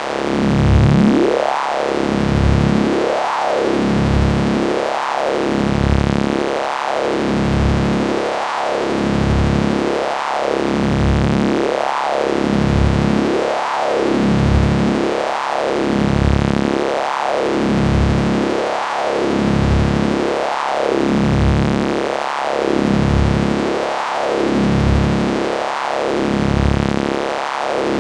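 Synthesized sci-fi electricity sound effect: a steady electric buzzing hum whose tone sweeps up and falls back in a regular cycle about every second and three-quarters.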